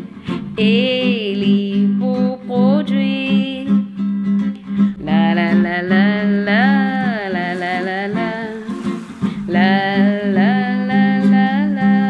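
A song: a voice singing in three phrases over acoustic guitar, with a low note held underneath throughout.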